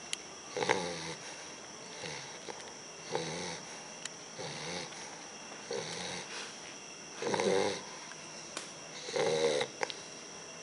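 Bulldog puppy snoring in its sleep: a run of short, pitched snores every second or two, the two loudest in the second half.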